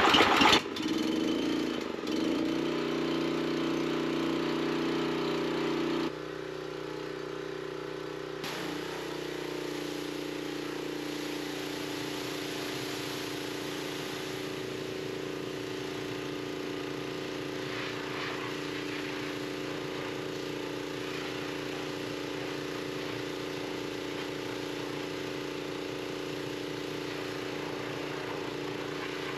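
Small rope-start gasoline engine running steadily after being started on choke. About six seconds in its sound drops and shifts, and it then settles into an even, steady run.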